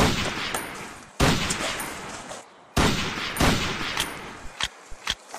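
Pistol shots, about four, each cracking out and then fading away in a long echoing tail, followed near the end by a few lighter clicks.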